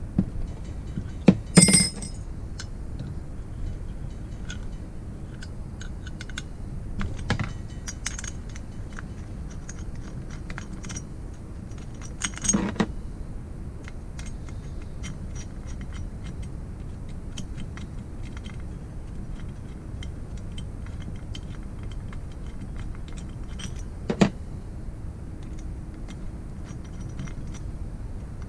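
Metal hand tools and small engine parts clinking and tapping during the disassembly of a motorized-bike engine, with a few sharp clinks (the loudest about a second and a half in, near halfway and a little past three quarters) over a steady low hum.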